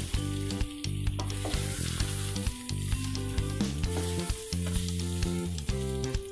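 Buckwheat, diced chicken and vegetables sizzling in oil in a stainless steel pot as a wooden spoon stirs them, with short scrapes and clicks of the spoon against the pot. Background music with held notes plays over it.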